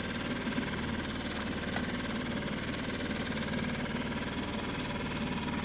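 A boat's outboard motor running steadily at low, idle-like speed, a constant low hum with a fine regular pulse.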